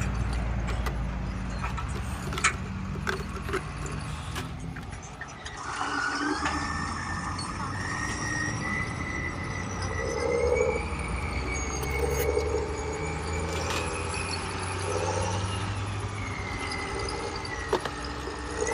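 A toy tractor's small electric motor whines steadily from about six seconds in, its pitch wavering slightly, as it pulls a heavy load. Before that there are scattered plastic clicks and knocks.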